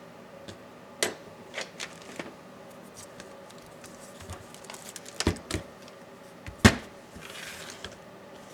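Dell Latitude 7410 laptop being taken apart: scattered sharp clicks and taps of plastic and metal parts and tools being handled. The loudest click comes about two-thirds of the way through, followed by a brief soft scraping noise.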